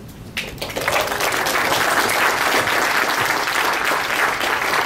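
Audience applause that builds over the first second, then keeps up as a steady clapping.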